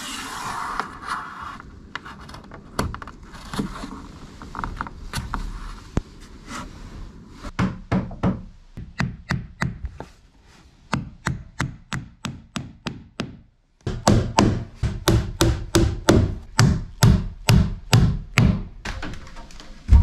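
Hammer driving a small nail into a wooden baseboard. A few light taps come first, then runs of quick, evenly spaced blows, with a short pause about two-thirds of the way in before a faster run.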